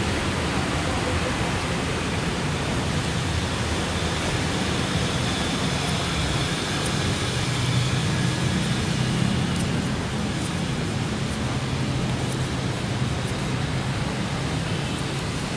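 Lakoni oil-less air compressor running steadily, a constant noisy hum, with a few faint ticks about halfway through.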